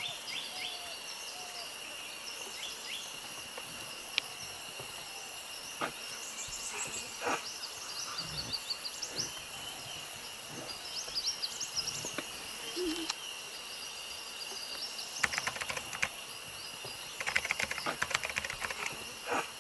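Forest ambience: a steady high-pitched insect drone, with scattered short bird chirps and a few clicks. Two bouts of rapid clicking come in the last quarter.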